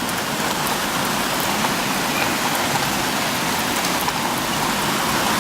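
Heavy thunderstorm rain falling in a steady downpour, with scattered small ticks of drops striking nearby.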